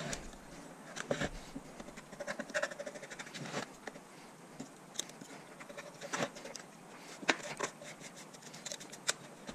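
Old gasket material being scraped and peeled off the aluminium flange of a DC/DC converter housing with a razor scraper: irregular scratching and rubbing, with scattered light clicks and taps.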